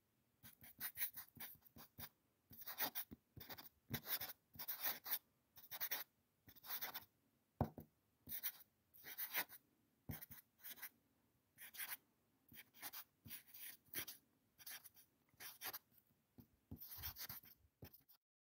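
Drawing on paper: short scratchy strokes of a writing tool across the page, following one another irregularly at about one to two a second, and stopping abruptly shortly before the end.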